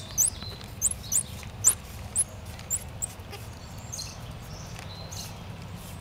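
Squirrel monkeys giving short, very high-pitched rising chirps, about two a second through the first half, then fainter, over a low steady rumble.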